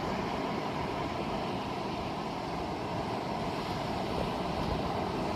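Steady rush of ocean surf and wind on a phone microphone, an even noise with no separate events.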